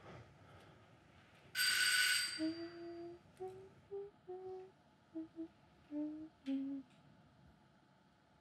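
A person humming a slow tune in short, separate notes, with a short, sharp ringing sound just before the humming starts.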